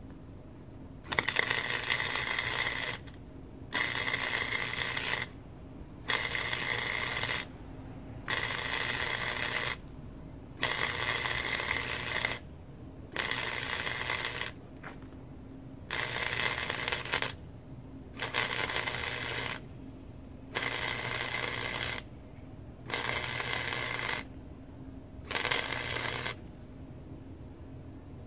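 Wire-feed welder arc crackling in about eleven short bursts of one to two seconds each, with brief pauses between, as a series of short welds is laid on steel bed-frame angle iron.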